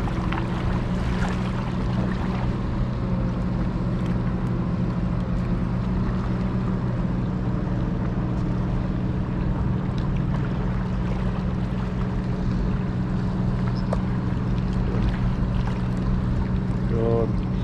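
Small fishing boat's motor running with a steady low hum as the boat passes.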